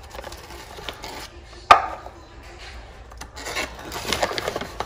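Coconut flour being scooped and tipped into a plastic mixing bowl with a measuring cup: one sharp knock a little under two seconds in, then soft irregular scraping and rustling.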